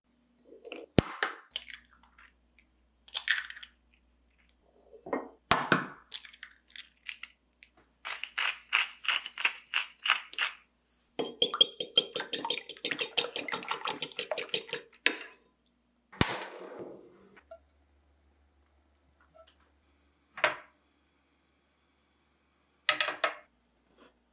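Eggs tapped and cracked against a bowl, then beaten quickly in the bowl with a utensil: a fast, even clinking of several strokes a second that runs for several seconds, followed by a few single taps on the bowl.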